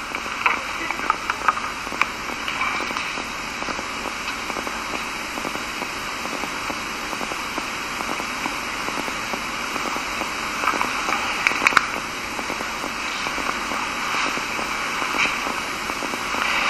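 Steady hiss of room noise in a lecture recording, with scattered sharp clicks and crackles.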